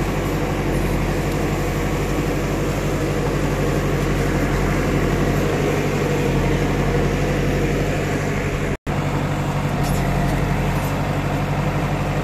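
Diesel engine of an Escorts Digmax backhoe loader running steadily while it works, with a split-second dropout about nine seconds in.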